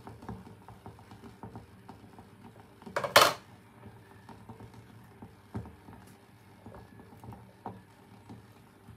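Kitchen crockery and cutlery being handled: scattered light clinks and knocks, with one louder clatter about three seconds in.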